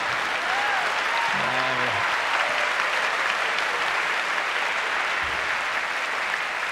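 Large audience applauding, a steady dense clapping.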